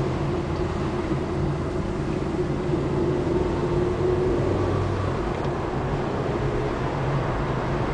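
Car interior noise while driving: a steady engine hum over tyre and road noise, heard from inside the cabin.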